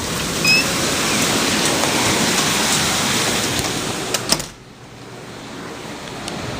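Heavy rain pouring steadily. About four seconds in come a couple of sharp knocks, and the rain suddenly drops to a much quieter, muffled rush.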